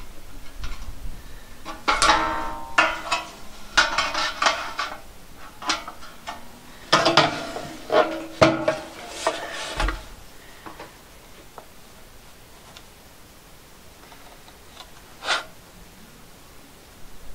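Thin steel corner trim clanking and rattling as it is handled and held against steel siding. The clatter comes in a busy run of knocks with a short ring, then dies down, leaving one more knock near the end.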